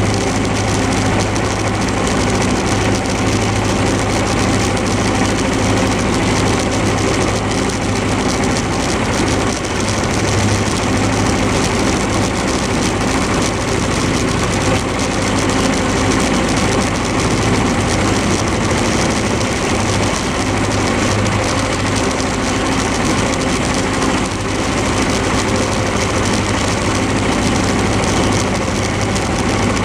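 Small vintage tractor engine running steadily at working speed while the tractor drives across a meadow.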